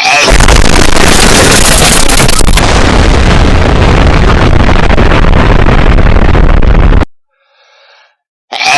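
Very loud explosion sound effect that starts suddenly, runs about seven seconds and cuts off abruptly. After a moment of silence comes a faint short hedgehog sneeze, and the explosion starts again near the end.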